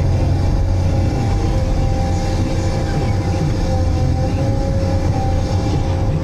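Multidocker cargo-handling crane running as its log grapple is lowered onto stacked pulpwood in a ship's hold: a steady low drone with two steady whining tones above it.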